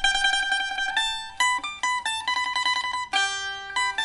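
A 2001 Meng Xianhong maple liuqin, a small four-string Chinese lute strung with steel strings and fitted with a replacement soundboard, playing a folk melody. Held notes are played in rapid tremolo, with single plucked notes in between.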